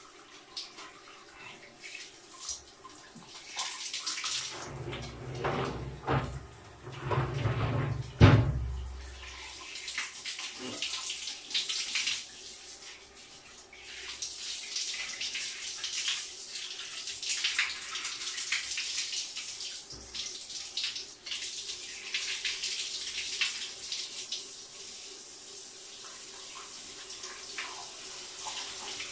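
Shower water spraying from a handheld shower head and splashing onto tiles and a body, its hiss rising and falling as he moves under it. A few low thumps and one sharp knock, the loudest sound, come about eight seconds in.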